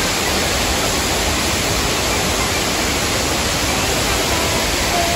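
Waterfall rushing: a loud, steady wash of falling water with no breaks.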